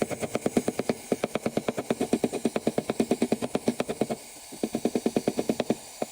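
Rapid, evenly spaced mechanical clicking, about eight or nine a second, from a dent-pulling tool working on a car body panel. It breaks off briefly about four seconds in, then resumes.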